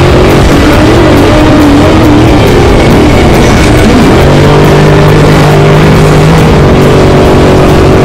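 Loud engine of an off-road race vehicle driven hard over rough desert track. Its pitch rises and falls for the first few seconds, then holds steady for about two seconds midway, over a constant rattle and rush of dirt and wind.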